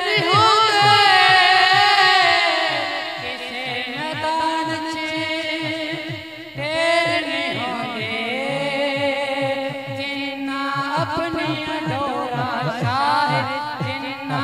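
A man singing a Punjabi devotional song into a microphone over a PA system, drawing out long, ornamented notes with no clear words, over a regular low pulse.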